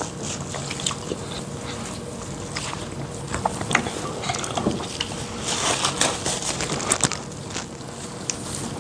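Two people eating fufu and soup by hand in a race: a steady run of wet mouth clicks, smacks and slurps, busiest around the middle.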